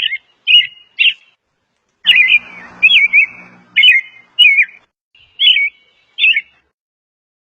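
Robin song: a series of short, quick, warbling chirped phrases with a brief pause about a second in.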